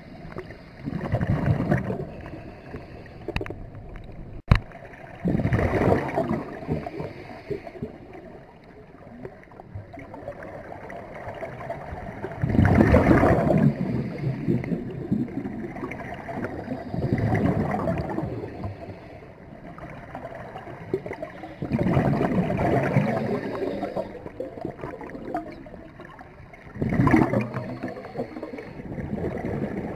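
Scuba regulator exhaust bubbles gurgling underwater, in about six bursts spaced four to five seconds apart, one with each breath out. A single sharp click sounds about four and a half seconds in.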